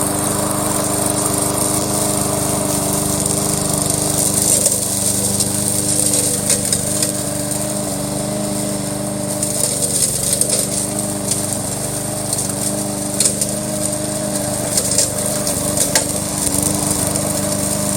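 Home-built remote-control lawn mower running steadily, its engine holding an even hum, with scattered short ticks and clicks on top.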